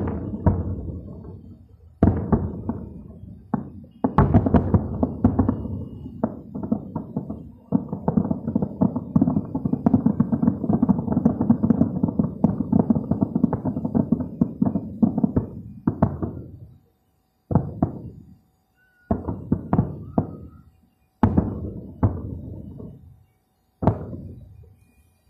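Aerial fireworks shells bursting: a string of sudden booms, then a dense, rapid volley of cracks and bangs for several seconds, then single bursts about every two seconds near the end.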